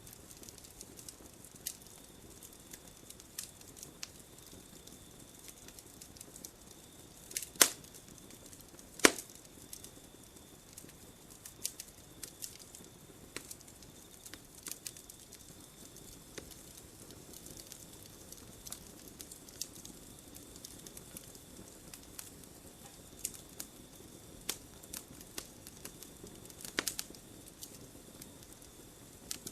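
Campfire crackling: scattered sharp pops and snaps of burning wood over a soft hiss, with two loud pops a little over a second apart about a quarter of the way in and another near the end.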